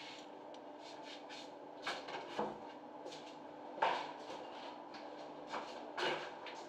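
A few sharp knocks and clacks of hard objects being handled, the loudest a little under four seconds in, over a steady background hum.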